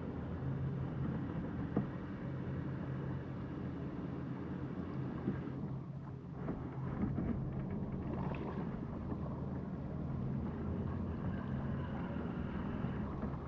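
Motor of a motorized Vibe Yellowfin 100 kayak running steadily with a low hum as the kayak moves over the water, dipping briefly about six seconds in.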